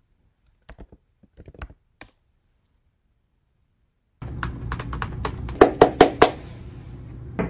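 A few faint key clicks, then typing on a laptop keyboard, followed by about four sharp hand claps in quick succession near the end.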